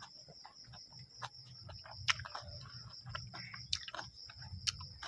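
Close-up eating mouth sounds: wet lip smacks and clicks from licking fingers and chewing, scattered irregularly and sharpest about two and four seconds in. A steady high thin tone runs underneath.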